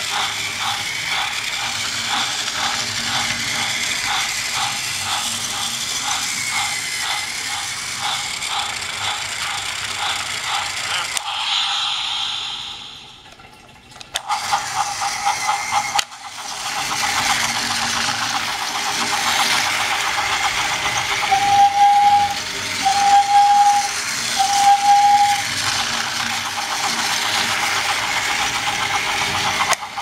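Battery-powered Trackmaster motorized Spencer toy engine running on plastic track: a steady motor whine with a rhythmic clatter from the wheels. About halfway through it winds down and stops, then starts running again, and three short high toots sound a few seconds later.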